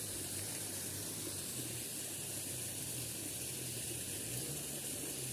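Steady rush of flowing water from a small stream.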